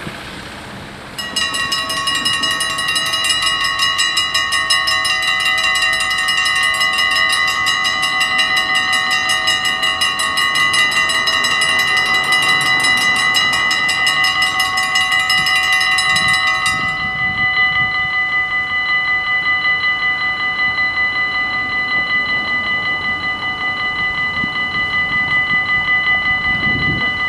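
Dutch level-crossing warning bells ringing fast and loud, starting about a second in, as the crossing closes. About two-thirds of the way through, once the barriers are down, the bright clanging part drops away and a softer, steadier ringing carries on.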